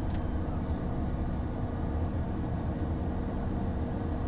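Steady cockpit noise of a Bombardier Challenger business jet with its turbofan engines at idle after landing: a constant low drone with a steady hum. A faint click comes just after the start.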